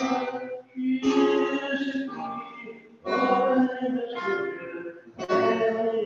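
A song sung to classical guitar accompaniment: a singing voice in phrases about two seconds apart over plucked guitar.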